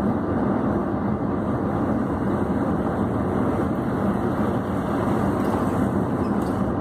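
Steady vehicle rumble heard from inside a cab, holding an even level throughout.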